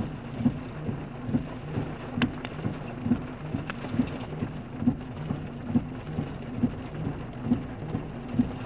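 Heavy storm rain pelting a car, heard from inside the cabin as a steady hiss and patter. A low thump repeats about once a second throughout.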